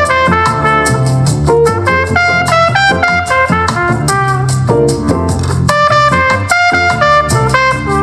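Brass-led instrumental jazz with a steady beat and strong bass, played at full volume through a JBL Horizon 2 Bluetooth clock-radio speaker.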